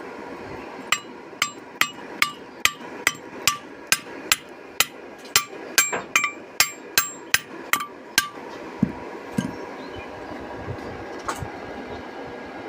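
Hammer striking steel: a quick run of about eighteen ringing metallic taps, two to three a second, that stops after about seven seconds. A few softer knocks follow.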